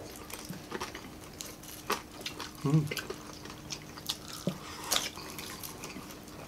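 Close-miked mouth sounds of people eating with their hands: wet lip smacks and chewing clicks, scattered and irregular, with a brief murmur about two and a half seconds in. A faint steady hum lies underneath.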